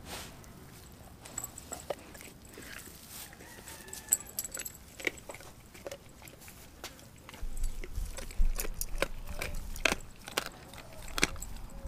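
A Doberman gnawing on a raw frozen pig's foot: irregular crunching bites and sharp clicks of teeth on bone. A low rumble joins from a little past halfway.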